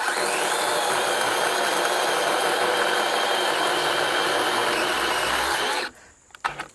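A power tool running at a steady speed for about six seconds, then cutting off suddenly.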